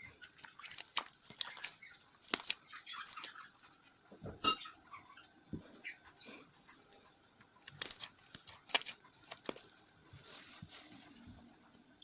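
Homemade glue slime being stirred and worked, giving irregular wet squelches and sticky clicks. The sharpest click comes about four and a half seconds in.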